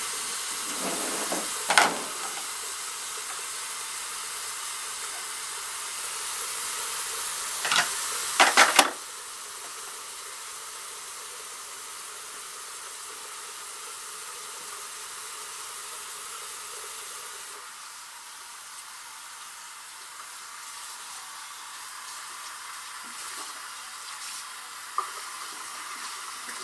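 Steady hiss of water running, with a sharp knock about two seconds in and a quick burst of loud clanks around eight seconds in from work on the sink's drain pipes. The hiss drops to a lower level after the clanks.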